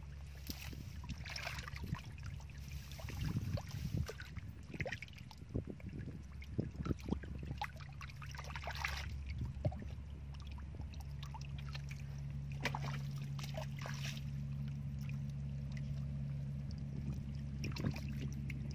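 Hands splashing and sloshing in shallow muddy water and brushing through dry grass as fish are grabbed, in short irregular bursts mostly in the first half. Under it runs a steady low motor hum that grows stronger past the middle.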